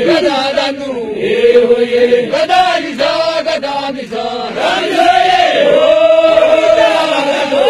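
Men chanting an Arsi Oromo geerarsa, the traditional sung heroic poetry of the Oromo, in long held notes that bend up and down.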